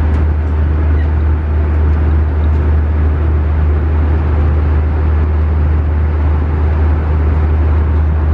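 Steady low drone of airliner cabin noise: engines and air rushing through the cabin, unchanging throughout.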